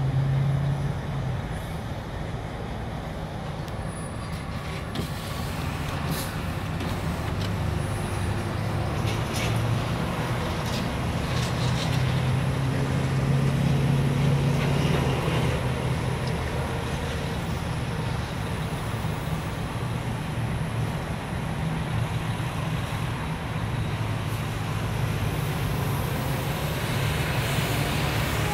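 Road traffic noise with a steady low engine drone that swells toward the middle and eases off, as a Van Hool charter coach moves slowly through the junction.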